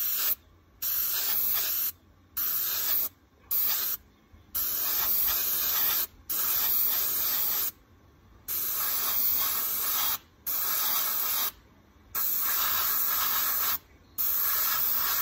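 Airbrush spraying paint in short hissing bursts, about ten of them, each half a second to a second and a half long with brief stops between as the trigger is pressed and released.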